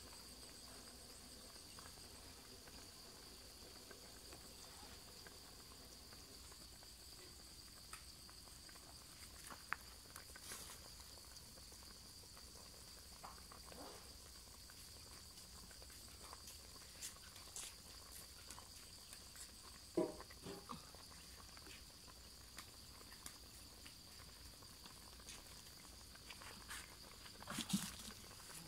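Faint, steady high-pitched trill of crickets, with a few soft clicks and knocks now and then; the loudest comes about two-thirds of the way in and near the end.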